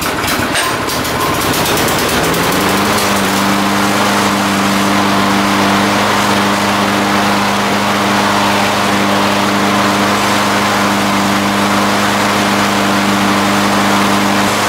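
Troy-Bilt TB360 push mower's single-cylinder gasoline engine running just after starting. It picks up speed about two and a half seconds in, then holds a steady governed speed, with the freshly sharpened blade spinning under the deck.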